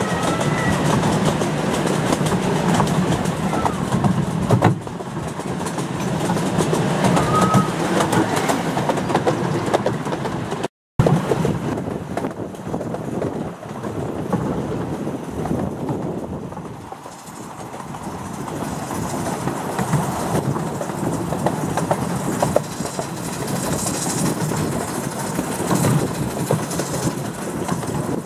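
A 7¼-inch gauge miniature steam train running, heard from an open carriage: a steady rumble of wheels on track with clickety-clack over the rail joints, and a couple of short high squeals in the first several seconds. The sound cuts out for a moment about eleven seconds in.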